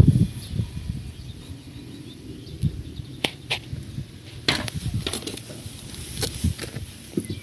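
Several irregular sharp knocks over a low rumble from a Volkswagen Golf Mk3's suspension strut, the knocking that marks the strut as worn.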